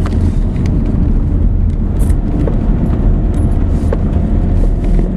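Cabin noise of a 2010 Ford Tourneo Connect driving on a rough dirt road: a steady low rumble of engine and tyres on the unpaved surface, with a few short knocks and rattles as the van jolts over bumps.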